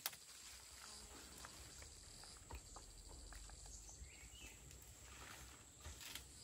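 Faint, quiet forest ambience of steady high insect buzzing, one strand of which stops about two and a half seconds in. Over it come scattered soft knocks and rustles of bare feet on packed earth steps and a carried bundle brushing, with a sharp click at the very start.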